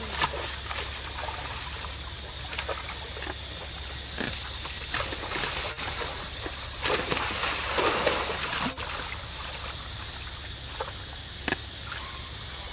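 Water trickling and splashing as macaques swim and paddle through a shallow pool. Scattered sharp splashes, and a louder stretch of splashing about seven to nine seconds in.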